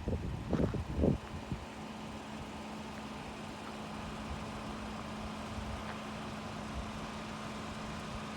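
Vehicle driving on a dirt road: a steady engine and road hum, with a few low bumps in the first second.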